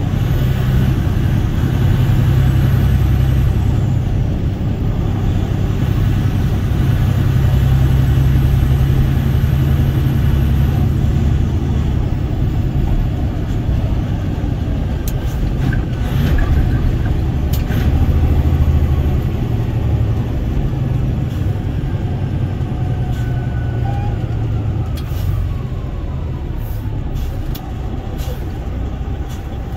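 A road vehicle driving at a steady cruise, heard from inside its cabin: a continuous low engine and tyre rumble over road noise, easing slightly near the end, with a few sharp clicks in the second half.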